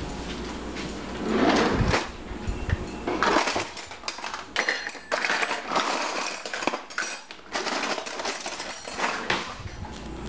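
Irregular rustling and knocking handling noises in a kitchen, coming in uneven bursts.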